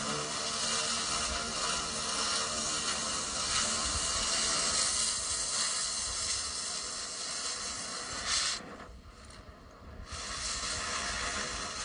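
Oxy-acetylene cutting torch hissing steadily as it cuts through steel pipe. The hiss drops away for about a second and a half near the end, then starts again.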